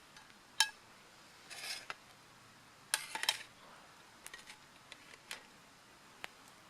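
Metal camping gear being handled: a sharp clink with a brief ring about half a second in, a short rustle, then a quick clatter of metal on metal a few seconds in, followed by a few light ticks.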